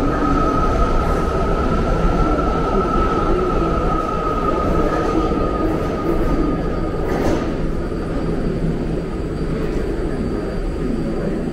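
Underground BART station with a BART train standing at the platform: a steady rumbling hum of train and station, with a high whine that fades away about halfway through.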